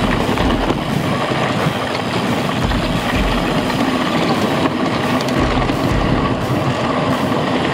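Mountain bike riding over a rough dirt trail, heard from an onboard action camera: a steady, loud rough noise of tyres and rattling bike, with low thumps from bumps about two and a half and five and a half seconds in.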